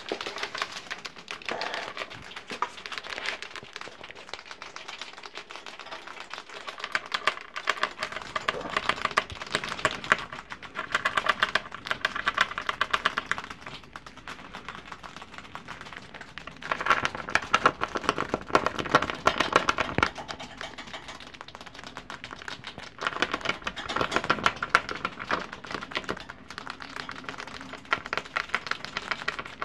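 Pet rat gnawing dry, uncooked pasta held in its paws: rapid, crisp crunching clicks that come in bursts of a few seconds with short pauses between.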